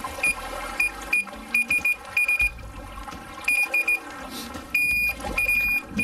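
Electronic carp bite alarm beeping in irregular bursts of a single high tone, short single beeps and quick runs, as line moves over the alarm's sensor.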